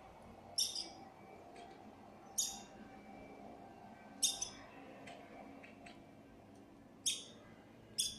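A black bird giving short, sharp, high calls, five in all, roughly every two seconds, over a faint steady hum.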